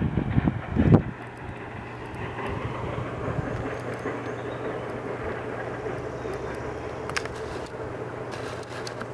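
Wind buffeting the microphone for about the first second, then a steady low hum under faint outdoor noise.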